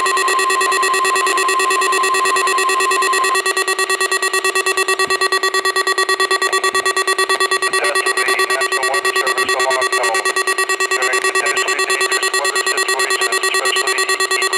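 NOAA Weather Radio tone alarm test. The 1050 Hz warning alarm tone sounds together with the receiver's own steady, buzzy alarm tone. The 1050 Hz tone cuts off about three seconds in, and the remaining alarm then pulses rapidly while an announcer's voice comes up faintly underneath.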